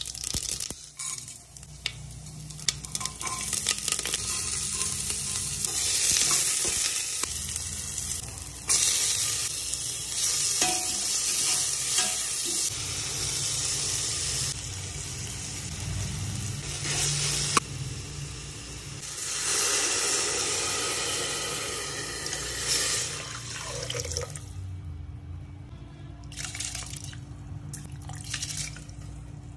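Hot oil sizzling in a steel pressure cooker as mustard seeds and dal temper, then onions, tomatoes and chillies frying while being stirred, with scattered clicks of the spoon on the pot. About 24 seconds in, the sizzling dies away and softer liquid sounds follow.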